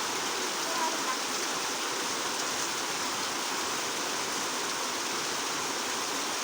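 Heavy rain falling steadily, an even hiss of water.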